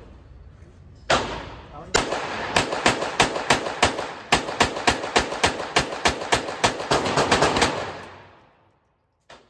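Semi-automatic pistol fired in a mag dump, emptying the magazine: two single shots, then a fast string of about four shots a second that stops near the end. Each shot echoes off the walls of the indoor range.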